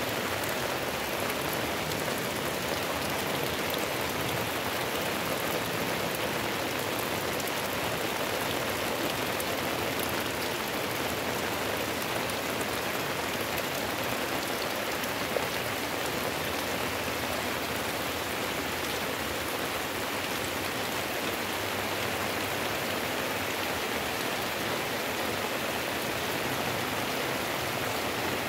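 Heavy rain pouring down steadily as a dense, even hiss. A single sharp tap stands out about halfway through.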